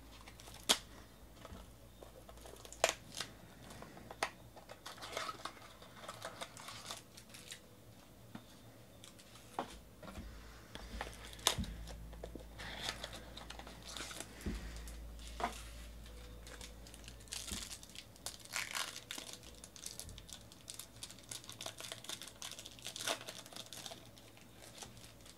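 Foil trading-card pack and box packaging of a 2019 Bowman Sterling baseball box being handled and torn open by hand: irregular crinkling and rustling with scattered sharp clicks and snaps.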